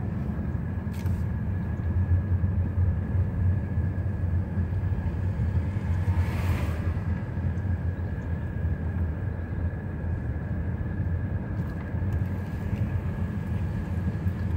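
Car cabin noise while driving slowly: a steady low rumble of engine and tyres, with a faint steady whine above it. About six seconds in there is a brief hiss.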